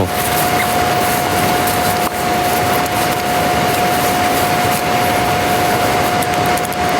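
A machine running steadily: a loud, even hiss with a constant whine held at one pitch.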